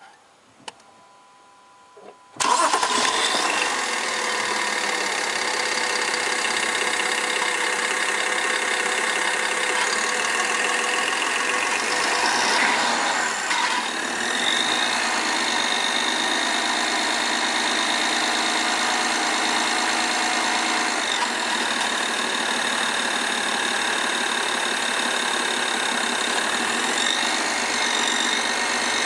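BMW 530i's N53 straight-six engine cranking and catching about two seconds in, then idling steadily with a rattling clatter from the rear of the engine. A garage put the clatter down to the high-pressure injectors, which the owner doubts.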